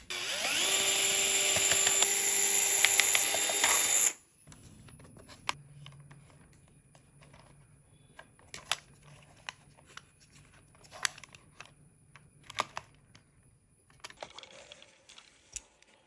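An electric motor whirs up to speed and runs steadily for about four seconds, then stops abruptly. Afterwards there are only faint scattered clicks and handling noises.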